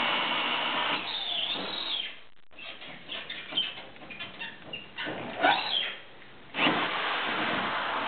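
Electric twist drill boring into the cylinder of a tubular lock to drill it out. The drill runs, stops about two seconds in, and a few seconds of scattered scraping and squeaking follow. The drill then starts again for the last second and a half.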